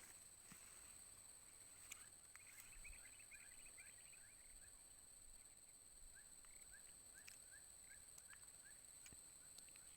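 Faint outdoor ambience: a steady high-pitched insect drone, with a bird giving runs of short rising chirps, about three a second, twice in the stretch.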